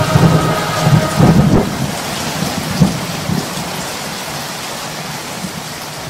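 Rain with rolling thunder, the rumbles strongest in the first couple of seconds, then the whole sound fading gradually.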